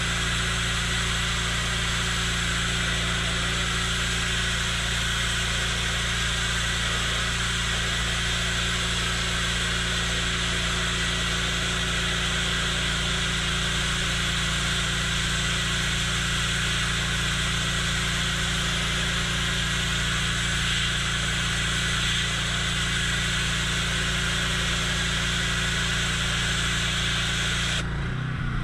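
Pressure washer running, its jet spraying steadily onto grimy, algae-covered stone paving slabs to strip the dirt off, with the machine's steady hum underneath. The spray cuts off briefly near the end.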